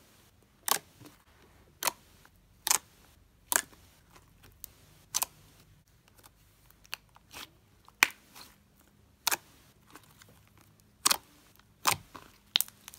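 White slime being pressed and folded by hand, with sharp clicking pops of trapped air about once a second, a dozen or so in all.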